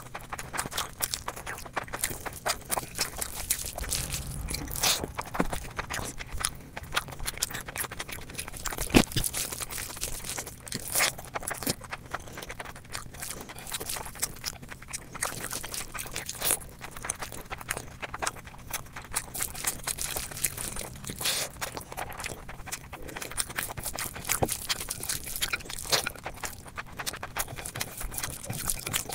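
Close-miked eating: steady chewing and crunching with a dense run of crackly mouth clicks, and one sharp click about nine seconds in.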